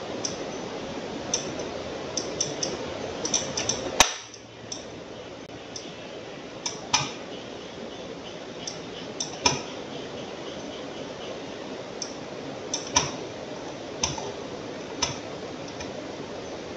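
Computer mouse button clicking, single clicks and quick pairs at irregular intervals over a steady hiss. The sharpest click comes about four seconds in.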